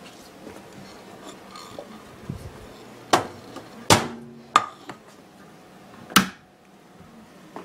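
Four sharp clinks and knocks, some with a brief ring, from a dish and the microwaved CD being handled as the disc is pulled out onto a plate.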